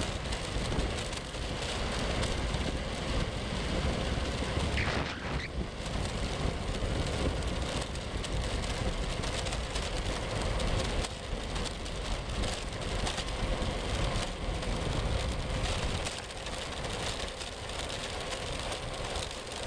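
Steady rolling noise of wheels on coarse asphalt during a ride, with wind on the microphone. A brief higher squeal comes about five seconds in.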